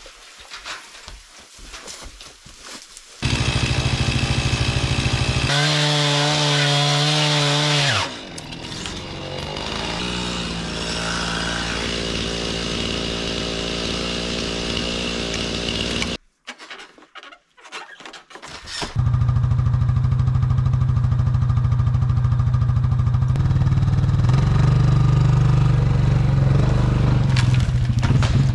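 Chainsaw cutting through the wooden posts of a barn frame. It starts about three seconds in and revs hard for a few seconds. It runs lower until it stops briefly partway through, then runs at full speed again for the last third.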